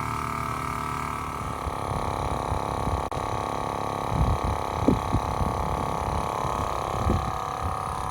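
Portable air compressor running steadily as it pumps up a compact spare tire, with a few low bumps partway through. It cuts off abruptly at the end.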